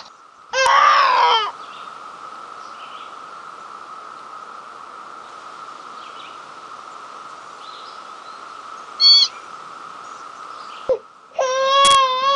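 Cartoon baby dragon crying with high, wavering calls, once about half a second in and again near the end. Between them runs a steady background drone, broken by a short chirp about nine seconds in.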